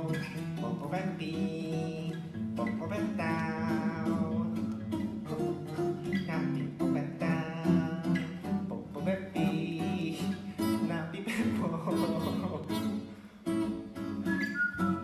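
Music: a song with acoustic guitar and a sung melody.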